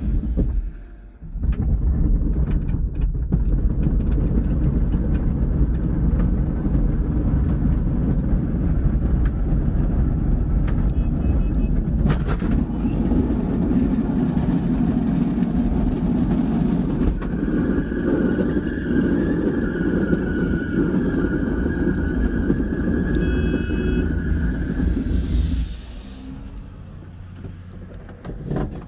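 Loud, steady road and tyre rumble inside a Honda del Sol's cabin as the car is towed behind a pickup truck on a strap. A faint steady whine joins it about two-thirds of the way through, and the rumble drops off sharply a few seconds before the end.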